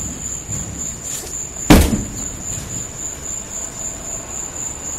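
An axe striking the body of a Ford Thunderbird: one heavy blow about a second and a half in, ringing briefly afterwards, with a few faint knocks around it.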